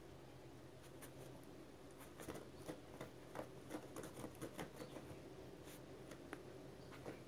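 Faint, irregular light scratching and clicking from miniature poodle puppies shuffling and pawing about on a rug, with a quick run of clicks in the middle, over a low steady hum.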